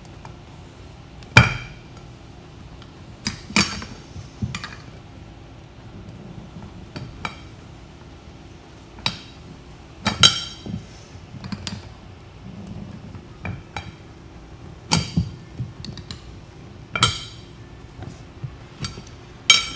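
Short metal tire iron clinking and scraping against a wheel rim while an ATV tire's bead is levered over it by hand. A dozen or so irregular sharp metallic clinks, each with a short ring, the loudest about a second in.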